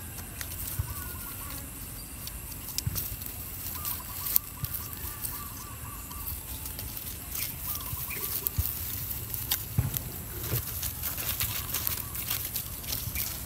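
Repeated wavering animal calls, each about a second long, over a steady high hiss and scattered rustling clicks.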